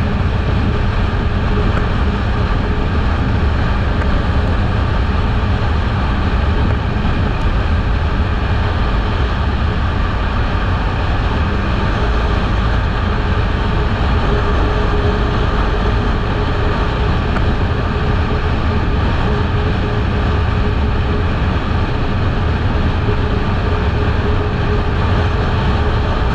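Kawasaki Eliminator 500 motorcycle cruising at a steady speed: the parallel-twin engine running evenly under a steady rush of wind noise.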